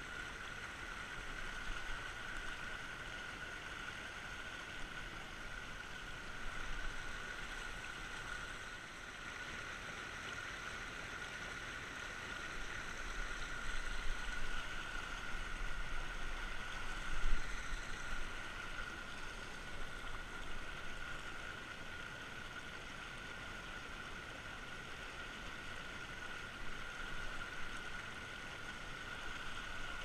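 Creek water rushing steadily over rocks in a small riffle close by. Around the middle come a few louder short bursts of splashing and handling, the loudest about two-thirds of the way through, as a hand goes down into the water to let a fish go.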